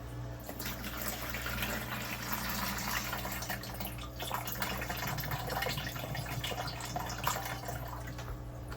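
Water splashing and trickling in an aquarium as she works a container of sand in the tank water, with many small crackles and drips. A steady low hum runs underneath.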